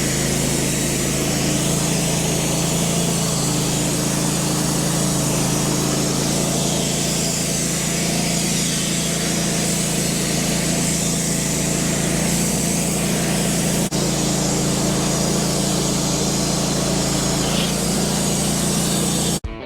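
Wood-Mizer LT15 band sawmill running steadily, its blade sawing a slab off a black cherry log. The sound cuts off abruptly near the end.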